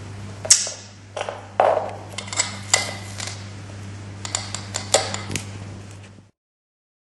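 Sharp clicks and light taps of a plastic treat spoon and target stick knocking on a wooden tabletop while a mouse is fed, a dozen or so at uneven intervals, over a steady low hum. All sound cuts off suddenly near the end.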